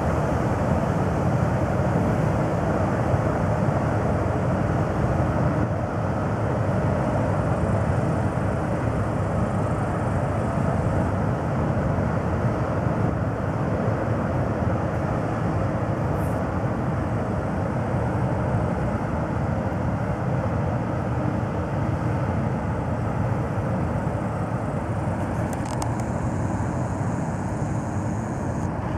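Small cargo ship's diesel engine running as the ship moves slowly away along the canal: a steady low rumble that fades slightly.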